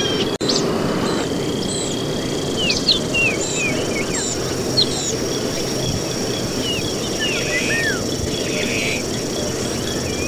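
Jungle ambience: many short chirping and whistled calls, some sliding up or down in pitch, over a steady high whine and a constant low rush of noise. There is a brief break in the sound about half a second in.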